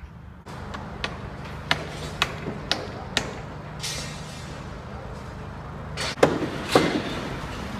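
Construction site noise: a series of sharp knocks, about two a second, then two louder bangs near the end, over a steady low machine hum.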